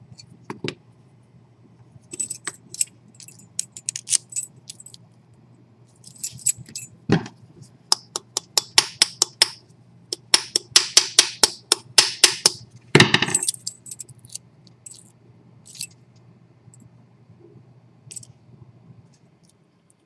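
Small metal clicks and rattles from handling a brass padlock lock cylinder and small metal parts, with a fast run of clicking in the middle and two louder knocks, one about seven seconds in and one about thirteen seconds in.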